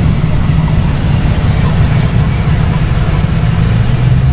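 Vehicle engine running with a steady, loud low drone while driving.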